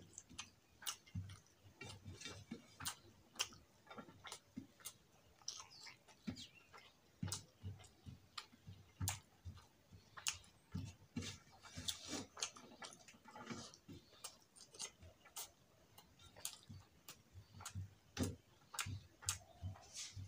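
A man chewing rice and curry with his mouth close to the microphone: irregular wet clicks and lip smacks, a few a second.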